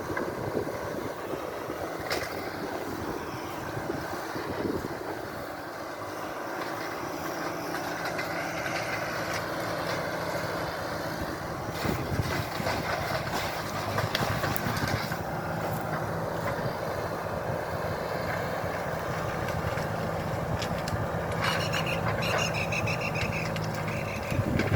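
An engine running steadily at an even speed, with some irregular clatter over it.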